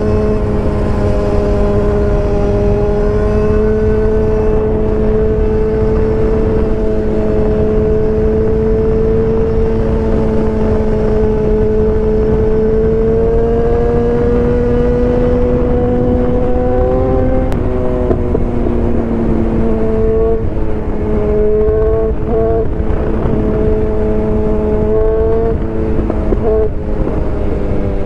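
BMW S1000R inline-four engine running at a held, steady pitch that slowly climbs and then drops off about two-thirds of the way through. Over the last several seconds the note rises and eases off in short steps as the throttle is worked. A heavy rush of wind noise on the microphone lies under it throughout.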